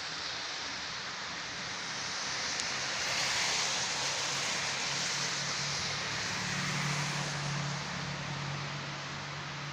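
Steady outdoor rushing noise with a low engine hum that grows louder a little past the middle, like traffic or a vehicle passing.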